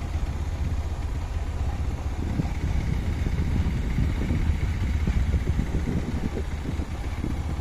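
Steady low rumble of a running vehicle engine, with a constant noise haze over it.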